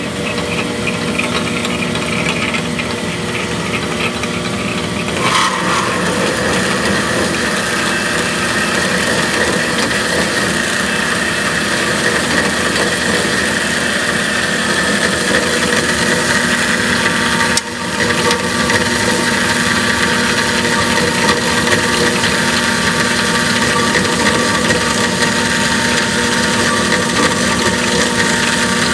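Clausing Kalamazoo horizontal bandsaw running, its blade cutting through 416 stainless steel round bar under coolant: a steady mechanical hum with a constant whine, with a momentary break about two-thirds of the way through.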